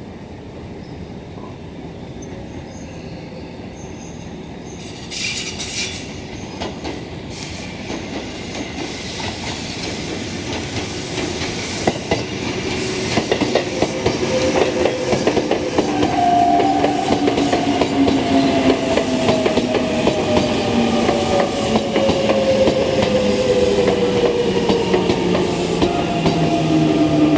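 Tobu 20050 series electric commuter train pulling into a station: its wheels clack over the rail joints, growing louder as it nears. From about halfway, the whine of its traction motors falls steadily in pitch as it brakes to a stop.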